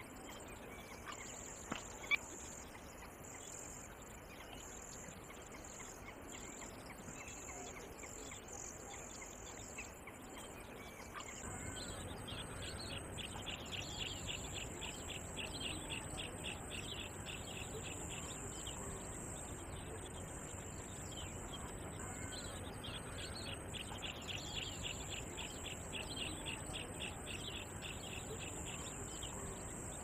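Outdoor wildlife ambience with a steady high insect drone and a sharp click about two seconds in. About eleven seconds in, the background noise rises, and a bird gives two long runs of rapid, repeated chirping notes.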